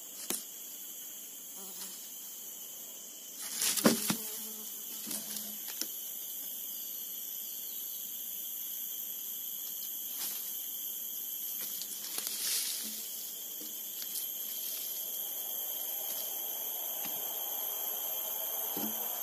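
Steady high-pitched drone of forest insects, several tones held together, broken by a few knocks and thumps, the loudest about four seconds in.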